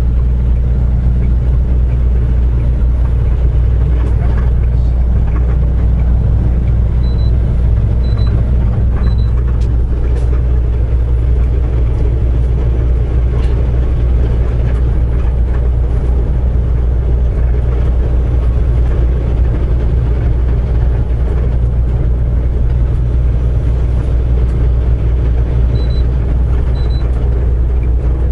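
Semi truck's engine and road noise heard inside the cab while cruising on the highway: a steady low drone.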